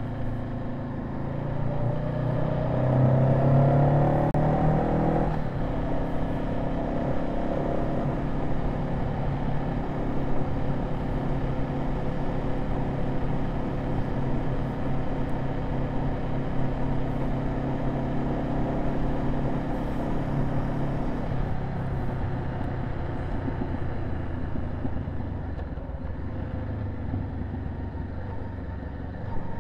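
Honda CB500F's parallel-twin engine pulling hard with a rising pitch for about five seconds, then dropping sharply at a gear change. It then runs at a steady cruise and eases off to a lower, quieter drone about 21 seconds in.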